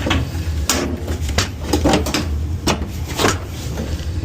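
Scattered clicks and light knocks of hands and a tool working screws and panel parts on a top-loading washer's cabinet, over a steady low hum.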